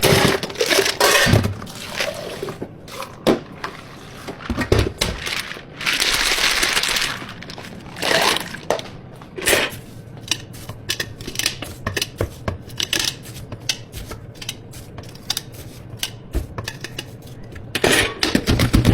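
Dishes and utensils being handled at a drink-making counter: scattered clinks and knocks of cups, lids and scoops. About six seconds in there is a rush of noise lasting about a second.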